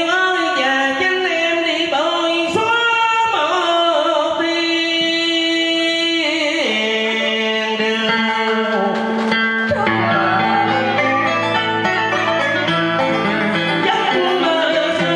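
Vietnamese cải lương music: a man singing long held, sliding notes over a plucked-string accompaniment.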